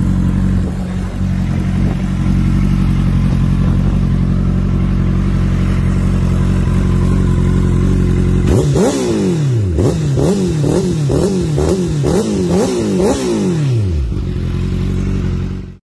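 Honda CBR1000RR SC59's inline-four engine through a Hindle exhaust idling steadily. After about eight and a half seconds it is blipped in a rapid series of short revs, about two a second, then settles back to idle.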